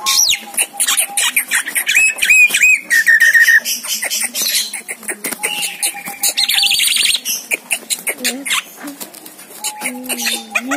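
Javan myna (jalak kebo) calling: a rapid jumble of clicks, chirps and whistled notes, some gliding up and down, with a fast trill about six seconds in.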